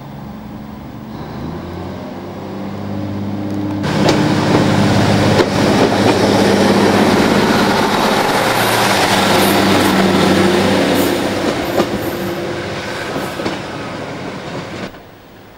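British Rail Class 153 single-car diesel multiple unit passing close by. Its Cummins diesel engine note grows over the first few seconds, then comes loud running noise of the wheels on the rails with a few brief high squeals, fading before the sound cuts off abruptly near the end.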